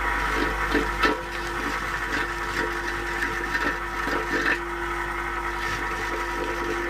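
Paoloni old-brick cleaning machine running steadily while a brick is pressed against its spinning scraper blades and wire brushes, scraping and grinding mortar off the brick, with irregular knocks as the brick catches the blades, the sharpest about a second in.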